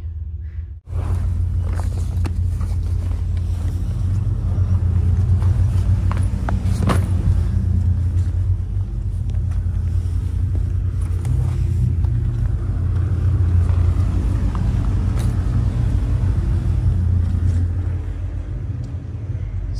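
Car engine running with a steady low rumble, broken by a brief drop about a second in.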